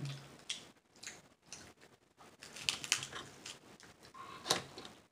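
Cooked snow crab legs being snapped and pulled apart by hand: scattered sharp cracks of shell, with a cluster near three seconds and the loudest snap about four and a half seconds in.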